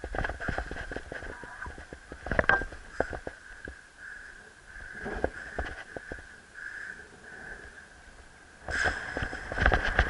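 Gusty wind buffeting the microphone, with irregular thumps and rustles that grow louder about a second before the end, over a thin steady high whine.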